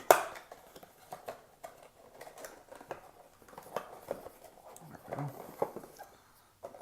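Cardboard blaster box and foil card packs being handled: a run of light taps, knocks and rustles, the loudest a sharp knock right at the start.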